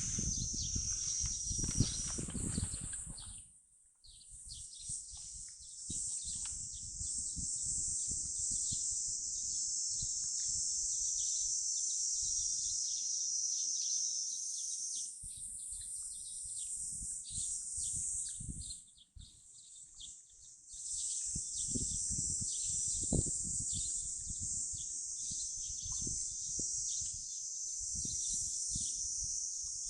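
Insects chirring in a steady, high-pitched outdoor chorus, with low rumbling and soft knocks beneath. The chorus and background dip briefly twice.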